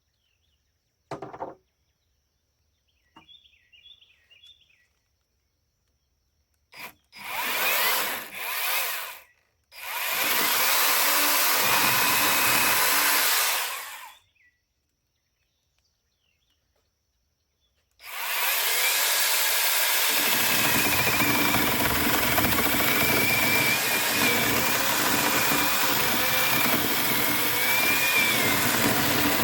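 Angle grinder grinding the wood of a log's saddle notch. It starts and stops in a couple of short bursts, runs for about four seconds, then after a pause grinds steadily from a little past halfway on, with a high motor whine that wavers under load.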